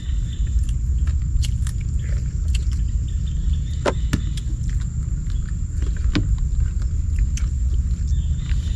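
Scattered sharp clicks of cooked snail shells being handled and picked at during a meal, the strongest about four and six seconds in, over a steady low rumble and a faint steady high whine.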